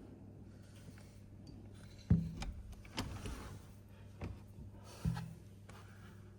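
Fireworks going off in the distance: four sharp bangs roughly a second apart, each trailing off briefly, the first the loudest.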